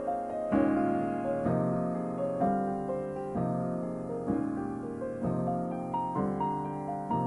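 Piano playing a slow melody over full chords struck about once a second, each chord ringing on as it fades.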